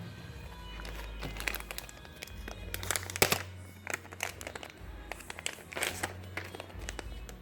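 Plastic packaging crinkling and rustling as squishy toys are unwrapped, in irregular crackly handfuls, loudest about three seconds in, over background music.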